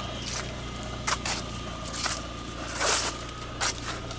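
A 1995 Mitsubishi Eclipse's engine idling with a steady low hum, under five or so sharp clicks and knocks, the loudest a little after a second in and near the three-second mark.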